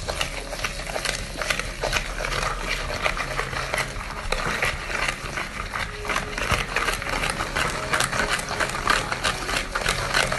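Hand whisk beating a creamy margarine, sugar and egg mixture in a bowl: a fast, continuous run of scrapes and clicks as the wires strike and drag along the bowl.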